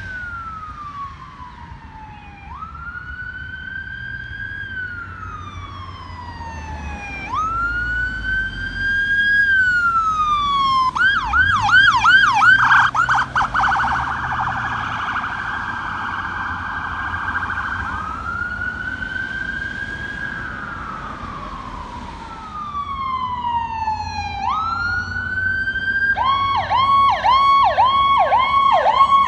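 Electronic sirens on passing emergency vehicles, an ambulance among them. The siren wails, rising quickly and falling slowly about every four to five seconds. About eleven seconds in it switches to a fast yelp and then a rapid warble before going back to the wail. Near the end a siren changes to a fast yelp.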